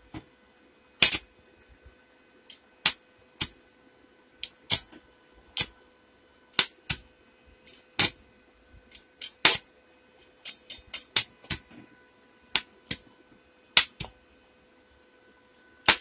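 Stick-electrode arc from an inverter arc welder set to about 115 amps, crackling in sharp, irregular pops about two a second, over a faint steady tone. It is a test weld on the freshly repaired welder.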